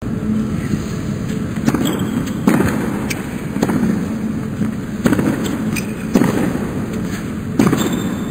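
A tennis serve and rally: about six sharp pops of rackets striking the ball, a second or more apart, over a low steady murmur of the arena.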